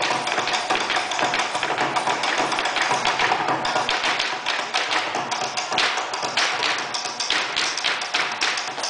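Malambo/sapateio foot-stamping: a dancer's boots striking a wooden dance floor in fast heel-and-toe taps and stamps, the strikes becoming sharper and more distinct in the second half.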